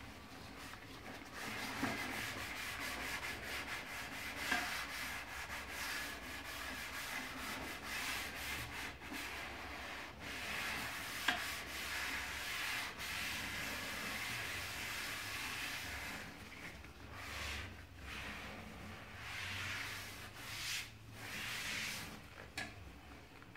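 A rubber-gloved hand wiping and scrubbing a toilet seat wet with disinfectant spray: continuous rubbing that breaks into separate wiping strokes in the last several seconds.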